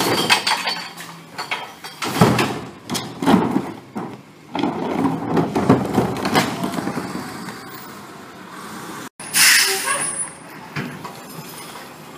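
Recyclables clattering and banging into the hopper of a McNeilus rear-loader garbage truck as a blue recycling cart is tipped and emptied, with repeated knocks over the first several seconds. About nine seconds in, the truck's air brakes let out a short loud hiss.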